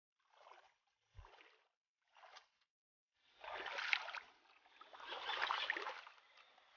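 River water splashing and sloshing around someone wading: three short, quiet splashes, then from about three seconds in two longer, louder stretches of sloshing.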